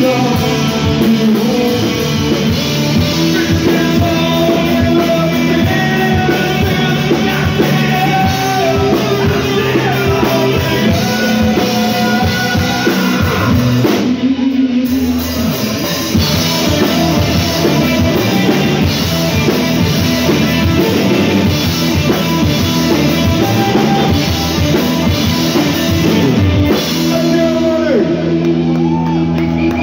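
Live rock band playing: a male singer over drum kit, electric bass and guitar. About halfway through the band briefly drops back, then comes back in.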